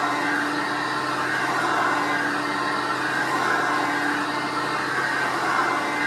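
Hoover Concept One U333 upright vacuum cleaner running on carpet, its transmission freshly rebuilt. The steady motor and brush noise swells and eases about once a second as it is pushed forward and pulled back.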